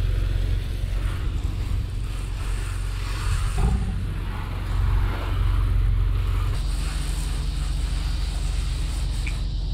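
Pressure washer spraying a sodium hypochlorite soft-wash mix onto a wooden fence through a hose wand: a steady hiss of spray hitting the boards over the pressure washer engine's constant low drone. The mix is being applied to kill the algae on the wood.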